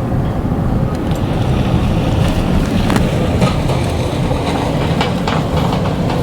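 Steady low rumble of a moving vehicle, with a few scattered clicks and knocks over it.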